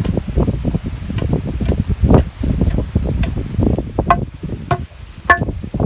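Long wooden pestle pounding cardamom and dried ginger in a stone mortar (ural). It makes a steady rhythm of thuds, about two strokes a second, while wind buffets the microphone with a low rumble.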